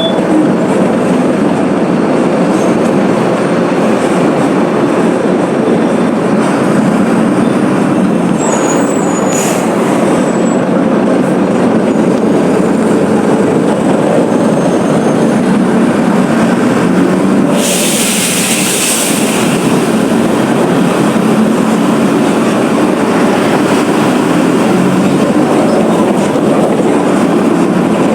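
Mercedes-Benz OF 1721 BlueTec 5 bus running on the move, its diesel engine and rolling noise a steady loud rumble, with a short burst of hiss about two thirds of the way through.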